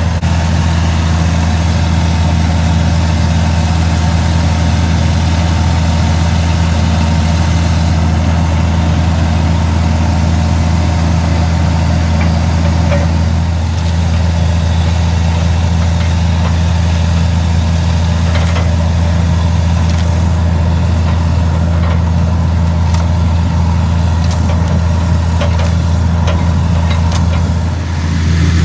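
A water-well drilling rig's engine running steadily under load as the drill bores into the ground, a loud, even, deep hum. A few faint ticks come through in the second half.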